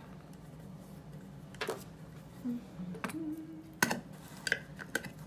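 Scattered light clicks and taps of paint bottles, caps and tubes being handled, with a brief short squeak near the middle.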